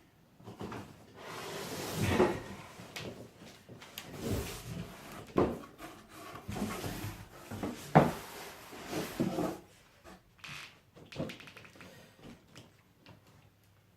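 Cardboard box and packing material rustling and scraping, with scattered knocks, as a large item is pulled out of a shipping box.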